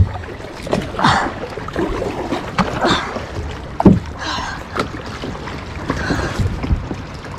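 Kayak paddle strokes splashing through the water, several in a row, with a couple of sharp knocks of the paddle.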